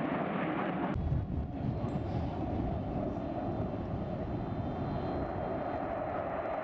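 Fixed-wing aircraft engine noise, a steady rushing roar that changes abruptly about a second in to a deeper rumble.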